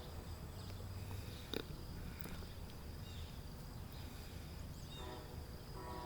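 Quiet outdoor ambience: a steady faint low rumble with a few faint short chirps, and a single click about one and a half seconds in.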